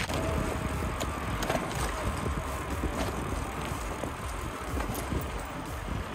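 A bicycle riding along a gravel and concrete path: a steady rumble of wind on the microphone and the knobby front tyre rolling, with a few faint ticks.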